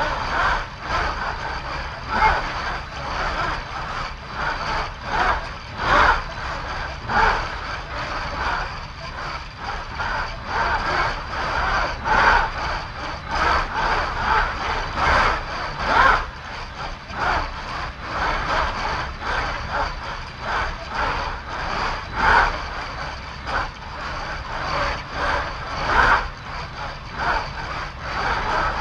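Hexapod (six-degree-of-freedom) motion platform of a closed flight simulator working, its actuators giving a run of irregular mechanical surges every half second to a second over a faint steady high whine.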